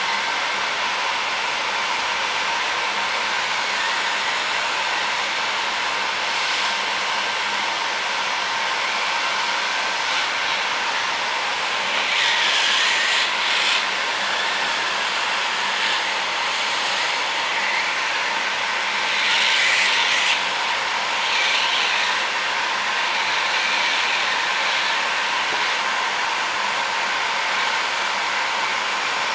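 Construction heat gun blowing steadily, heating an LED bulb's LED board to melt its solder, with a few brief louder hissing stretches around the middle.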